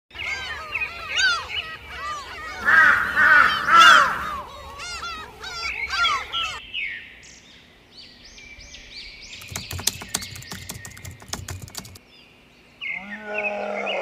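Birdsong: many quick, arching chirps overlapping, loudest about three to four seconds in. After about six and a half seconds it thins to a higher twittering with a run of rapid clicks, and a new call starts near the end.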